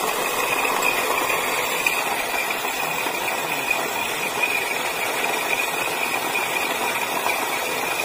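KANAZAWA electric burr coffee grinder running steadily, grinding whole coffee beans from its hopper, with a steady high whine over a gritty mechanical noise.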